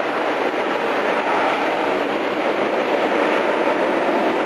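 Boeing 767-300ER's twin jet engines running at high power as the airliner rolls down the runway: a loud, steady roar that holds even.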